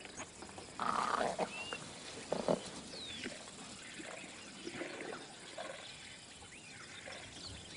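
Faint wild-animal sounds in quiet bush ambience: a few short gliding bird whistles, soft rustles and a couple of light knocks.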